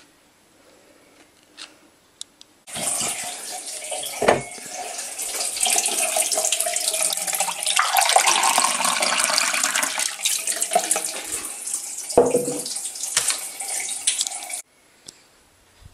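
Water running from a brass kitchen tap into a glass drinking glass held under it, starting suddenly about three seconds in and stopping sharply near the end. Two short knocks sound while it runs.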